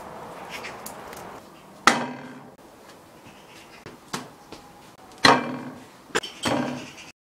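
Kitchen clatter of a ceramic plate and food being handled on a stone countertop: two sharp knocks with a ringing decay, about three seconds apart, then a quick pair of clicks near the end.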